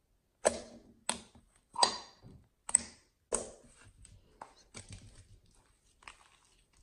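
Soap slime being poked and squeezed by hand, giving about eight short, sharp wet clicks and pops, one every half second or so.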